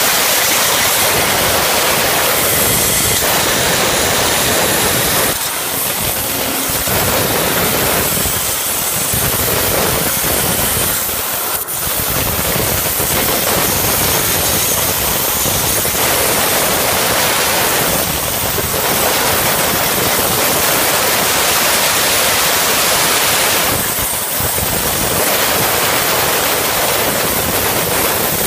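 Waterjet cutting machine jet cutting through a plate: a loud, steady hiss with a few brief dips.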